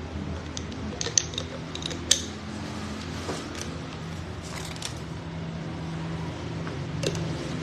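Scattered light clicks and clacks of agarwood bead bracelets being handled, over a steady low hum.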